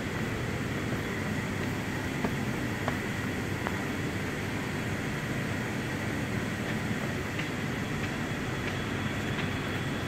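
Steady roar of plant machinery running inside a coal-fired power station, with a faint steady high whine and a few light ticks a few seconds in.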